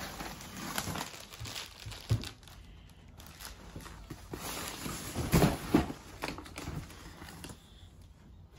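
Rustling and crinkling of cardboard and plastic packing as items are pulled out of a cardboard shipping box, with a sharp knock about two seconds in and a couple of louder dull thumps about five and a half seconds in.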